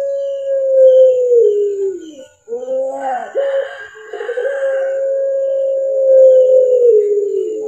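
Puter pelung (Barbary dove) calling its long 'kuk geruk kwaakk' coo. A long drawn-out note sags downward in pitch and breaks off. A short rough gurgling phrase follows about three seconds in. Then comes a second long held note that falls at its end.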